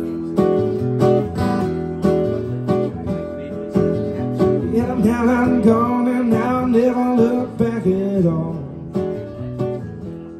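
Live acoustic guitar strummed and picked steadily, the intro of a song before the vocals come in. A wavering held melody line comes in about five seconds in and fades out about three seconds later.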